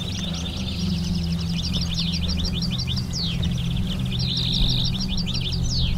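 Decoy finches singing in fast twittering trills of rapidly repeated notes, with a couple of sharp downward-swept notes, over background music.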